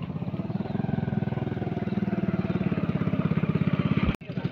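A motorcycle engine running at low speed with a fast, even pulsing beat, growing slightly louder, then cut off abruptly about four seconds in.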